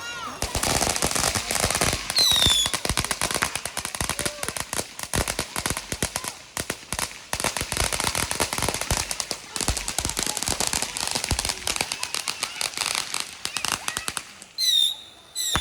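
A long string of firecrackers (mercun) going off: rapid, dense cracks for about fourteen seconds before thinning out near the end. High falling whistles cut through about two seconds in and twice near the end.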